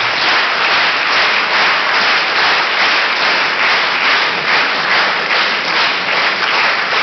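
Large audience of schoolboys applauding: dense, steady clapping.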